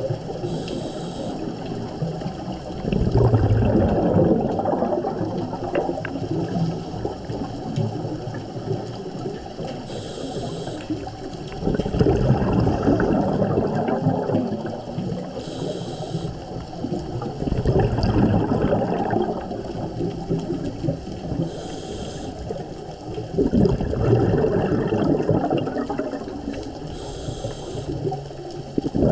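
Scuba diver breathing through a regulator underwater. Each breath is a short high hiss on the inhale, followed by a longer, louder rush of exhaled bubbles, repeating about every five to six seconds.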